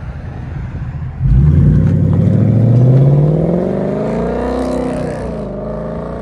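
2017 Ford Mustang GT's 5.0 L V8 through an X-Force Varex valved cat-back exhaust with the valves open, pulling away hard. About a second in it jumps in loudness and the revs climb; near the end the pitch drops at an upshift and the sound fades as the car moves off.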